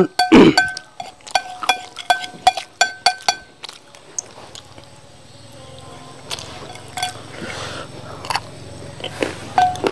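Metal spoon and fork clinking and scraping against a ceramic plate as fried rice is mixed, a quick run of ringing clinks for the first three seconds or so. After that it goes quieter, with soft chewing and a few more clinks near the end.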